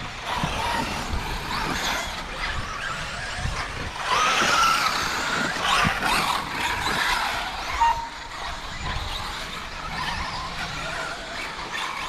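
Several 1/8-scale RC truggies racing on a dirt track: motors revving up and down, with tyre and dirt noise, loudest from about four to seven seconds in. A short beep near eight seconds.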